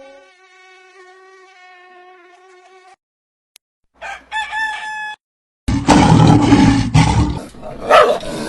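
A run of separate animal calls. A faint, steady, pitched tone lasts about three seconds, a short pitched call comes about four seconds in, and a loud, rough call fills the last three seconds.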